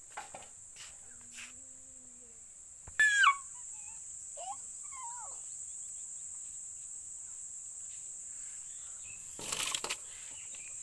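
Steady high-pitched chirring of insects such as crickets. A loud, short squeal falling in pitch cuts in about three seconds in, followed by a few faint chirps, and a brief noisy burst comes near the end.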